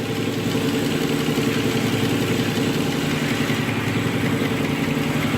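2005 Nissan Murano's 3.5-litre V6 idling steadily. It has a misfire on cylinder 3 (code P0303), which the owner puts down to low compression.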